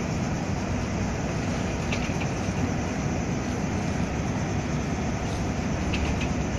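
Steady engine rumble with a rushing wind-and-water noise, heard from the deck of a ship under way, with a few faint high chirps about two seconds in and near the end.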